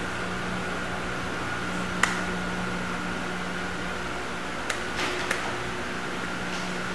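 Steady hum of a wall-mounted electric fan running, with a few short sharp taps over it, the loudest about two seconds in and three more close together near five seconds.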